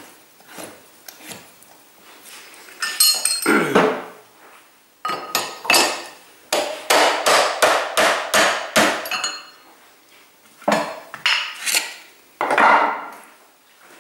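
A hammer knocking on a heavy cast-iron lathe chuck to seat it on the spindle: a quick run of about ten sharp metallic strikes, roughly two a second, with a few more knocks before and after.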